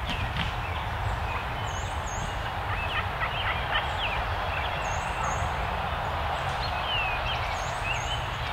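A freshly shot wild turkey tom flapping and rustling in dry leaf litter as it is picked up, with songbirds chirping throughout.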